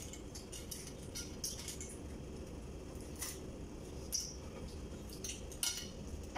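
Crabs being eaten by hand: scattered short clicks and cracks of shell being broken and picked apart, with small plate clinks, over a steady low hum.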